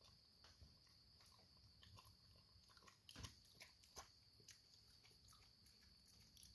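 Faint wet chewing and smacking of a raccoon eating peanut-butter bread from a plastic tub, with scattered small clicks and two sharper clicks about three and four seconds in.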